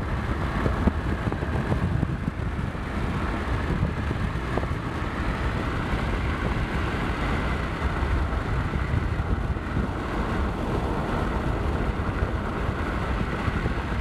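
Steady road and engine noise of a car driving, heard from inside the cabin: a continuous low rumble with a faint whine above it.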